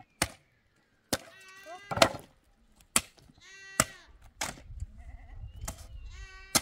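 Livestock bleating, three calls a couple of seconds apart, over sharp knocks that come about once a second.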